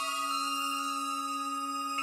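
Modern chamber ensemble music: a slow chord of several held notes, with a lower note entering as it begins and sustaining under the others.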